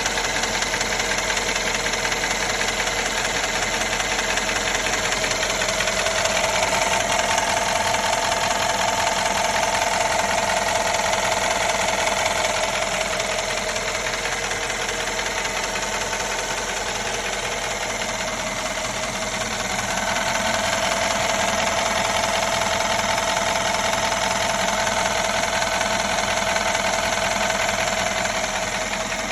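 Mercedes engine idling with a fast, steady ticking noise running through it. A mid-pitched hum swells twice, about a quarter and about two-thirds of the way in.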